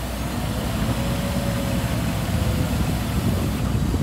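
Scania tipper truck's diesel engine idling, a steady low rumble.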